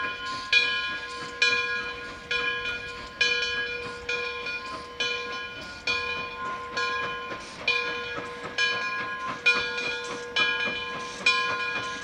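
Frisco 1630 steam locomotive's bell ringing steadily, struck a little less than once a second, each stroke ringing on and fading into the next.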